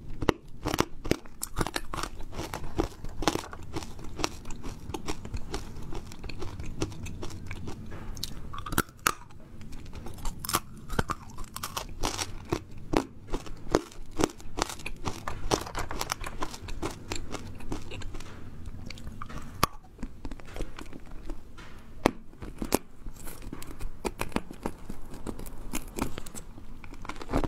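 Close-miked crunching and chewing of a hard, fish-shaped candy lollipop, with many sharp crunches in quick succession as it is bitten and chewed.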